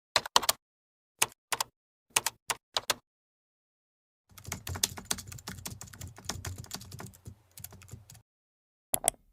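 Typing on a computer keyboard: a few separate keystrokes in small clusters, then about four seconds of fast continuous typing, and a last pair of keystrokes near the end.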